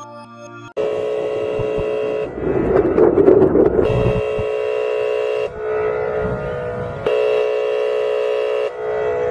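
Warning siren sounding in long, steady, horn-like blasts of several tones at once. It starts abruptly about a second in, swells into a harsh, noisy blare for a couple of seconds, and breaks off briefly between blasts a few times.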